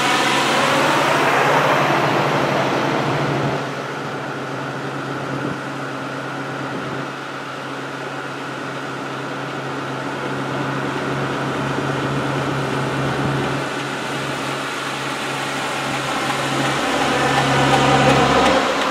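Procession of tow trucks and pickups driving slowly past: engines running and tyre noise. One vehicle goes by close with a falling sweep in the first couple of seconds, and another grows louder as it nears the end.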